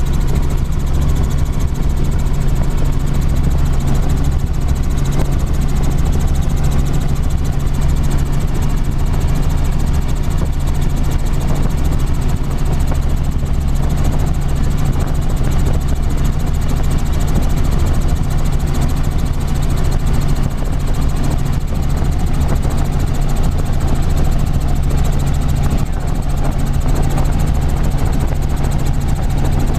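Light helicopter in flight heard from inside the cabin: a steady drone of engine and main rotor with a low, even rumble underneath that does not change.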